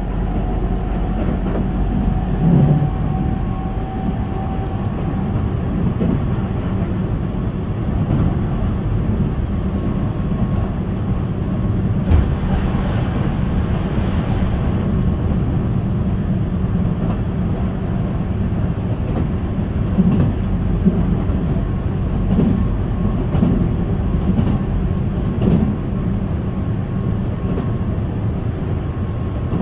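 Keihan 8000 series electric train heard from inside the passenger car while running at speed: a steady rumble of wheels on rail with a few rail-joint knocks. A little over twelve seconds in, another train passes close alongside for about three seconds, adding a rushing hiss.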